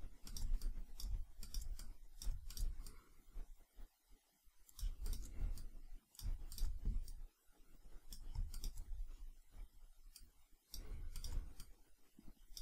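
Computer mouse clicking at an irregular pace, a scatter of short sharp clicks over a low background hum.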